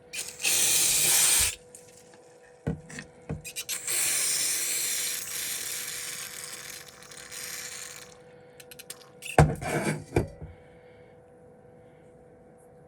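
Two hissing blasts of pressurised gas at the repair bench: a short strong one, then a longer one of about four seconds that fades away. A few sharp clicks and knocks follow, over a faint steady hum.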